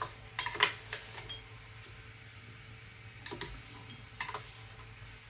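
Light clicks and clatters of hard PLA plastic as 3D-printed chessboard pieces and their raft scraps are handled, a cluster in the first second and a few more near the end, over a faint steady low hum.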